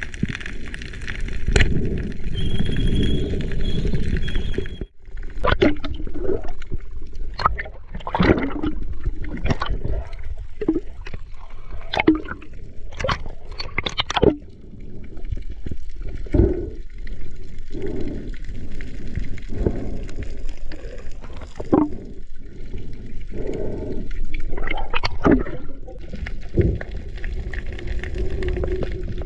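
Underwater sound heard through an action camera's housing: water gurgling and surging, with irregular sudden knocks. A steady hiss with a faint high whine runs for the first five seconds and cuts off abruptly.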